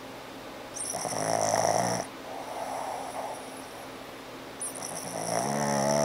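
Boston terrier snoring in its sleep: two loud snores about four seconds apart, with a softer breath between them. The snoring comes from the dog's flat, squishy face.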